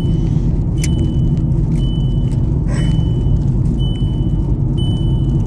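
Steady road and engine rumble inside a moving car's cabin, with the seatbelt warning chime pinging about once a second, a short high beep each time. The warning is sounding although the driver's belt is fastened, a fault the owner says the car has always had.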